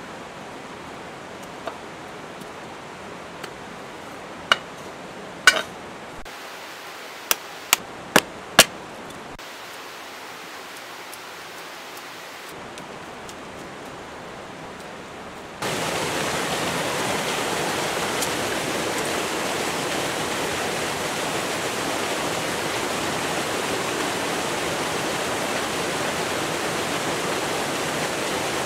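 Rushing water of a rocky mountain stream. For the first half it is faint, under a handful of sharp clicks and taps from hand-tool work in dry leaves and stones; about halfway through it jumps to a much louder, steady rush.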